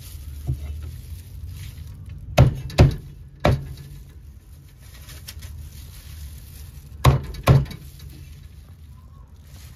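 Meat cleaver chopping a roast chicken on a thick wooden chopping block: one light tap, then a quick run of three heavy chops a couple of seconds in, and two more chops near the end.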